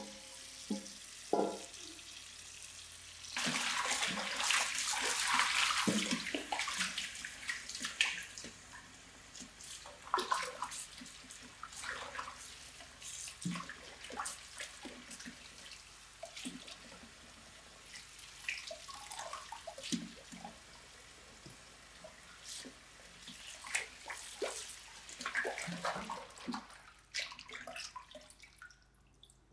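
A tap runs into a basin for a few seconds, then water splashes and sloshes in short bursts as ponytail radishes are washed by hand.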